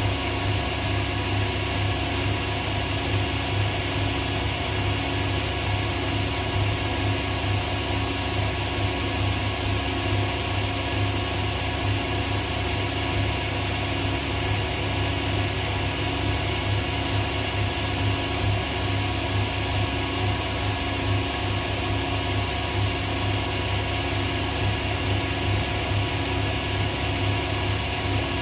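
Hotpoint Aquarius WMA37 washing machine on a spin, the drum turning at a steady speed with a constant hum and whine. It sounds fairly smooth, which the owner takes to mean the drum bearings might be okay.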